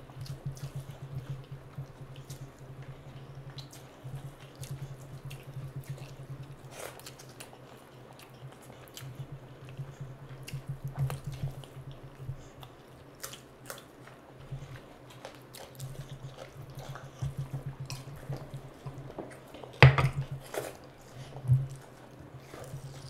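Wet squelching and clicking of hands mixing rice with curry and tearing at meat, with chewing sounds. A sharp knock about twenty seconds in stands out, and a steady low hum runs underneath.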